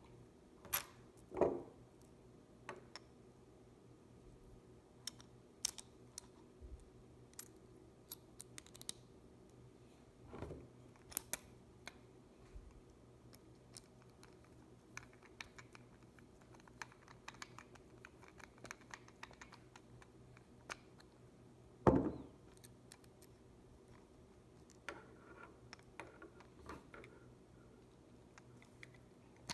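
Faint handling noise from a wooden pepper mill and its metal grinding mechanism turned in the hand: scattered small clicks and light scraping, with a few sharper knocks, the loudest about two-thirds of the way through.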